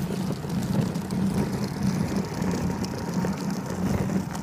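Plastic wheels of a red plastic kids' wagon rumbling steadily as it is pulled along a concrete sidewalk.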